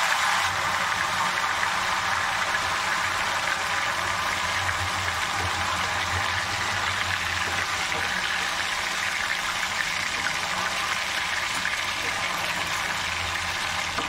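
Besan gatte deep-frying in hot oil in a steel kadai: a steady, dense sizzle and crackle of bubbling oil, with a faint low hum underneath.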